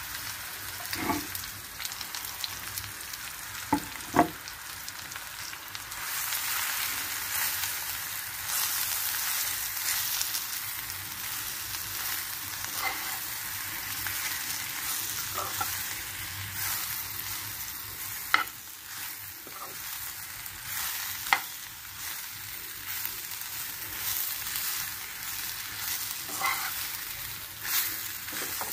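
Coated brinjal slices sizzling as they shallow-fry in oil in a pan, a steady hiss that grows louder about six seconds in. A metal spoon knocks and scrapes against the pan now and then as the slices are turned.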